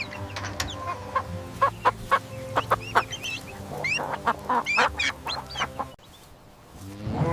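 Chicken clucking: a run of short, quick clucks mixed with a few rising chirps, stopping about six seconds in.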